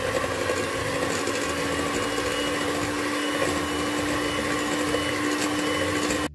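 Electric hand mixer running steadily at low speed, its beaters whisking chilled whipping cream in a stainless steel bowl toward soft peaks. The motor hum cuts off suddenly near the end.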